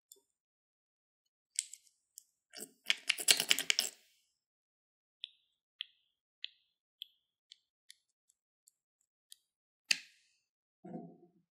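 Small plastic clicks and a quick rattle of clicking about three seconds in, then light ticks about every half second while pink pearl beads are tapped out of a tube onto the slime, ending with a sharper click near the end.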